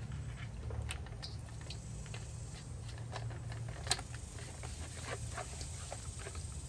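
Hands squishing and turning pieces of stingray in a wet chili-sauce marinade in a stainless steel bowl: scattered small wet clicks and squelches, with one sharper click about four seconds in.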